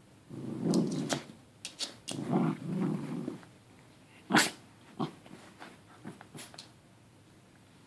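Dog growling over a meat stick in two long low stretches, followed about four seconds in by a short sharp sound and a few smaller snorts or noises.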